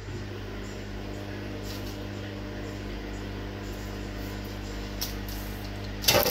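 Steady low hum of a running kitchen appliance, with faint clinks as food and plates are handled, and a loud brief knock and rustle near the end.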